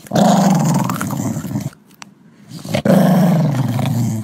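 Small dog, a Chihuahua, growling in two long, rough, low growls with a short pause between them.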